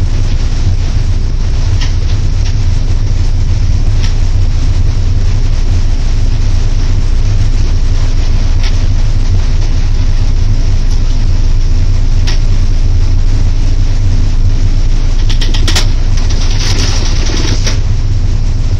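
Cab noise of an EP07 electric locomotive running along the line: a loud, steady low rumble with a few sharp clicks, and a brief hiss a couple of seconds before the end.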